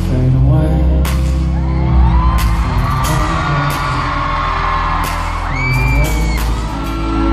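A live pop song played loud through an arena sound system, with deep bass, a drum hit about every second and a quarter, and a sung vocal line, while fans scream and whoop over it.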